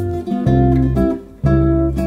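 Background music: acoustic guitar strumming chords, a new chord struck about every half second over strong low notes.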